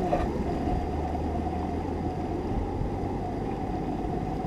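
Steady rush of fast-flowing river water over a riffle, with a low rumble underneath.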